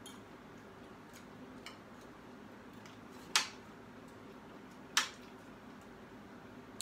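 Spoons and forks clinking against plates and bowls during a meal: a few faint ticks and two sharper clinks, about three and five seconds in, over a steady low hum.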